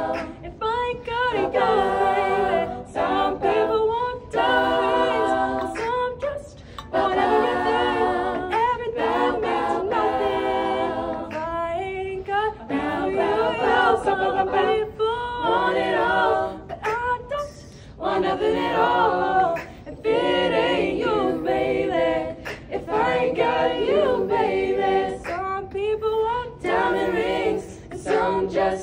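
Women's a cappella group singing, with a female soloist leading over the group's sustained backing harmonies, in phrases broken by short pauses.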